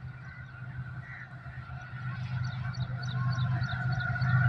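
GEU40 diesel-electric locomotive approaching from a distance: a steady low drone with a faint steady whine above it, growing louder. Short high chirps repeat several times a second in the second half.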